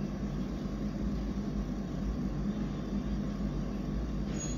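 A steady, low, rumbling drone of continuous noise, even in level throughout, with a faint brief high blip near the end.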